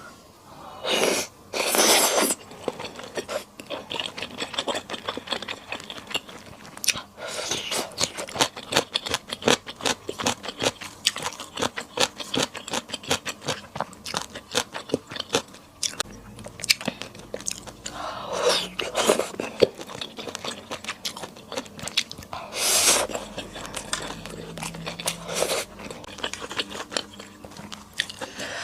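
Close-miked eating sounds from spicy Sichuan skewer hotpot: a steady run of rapid wet chewing and crunchy biting clicks, with a few louder, longer noisy bursts near the start, about two-thirds of the way in, and again near the end.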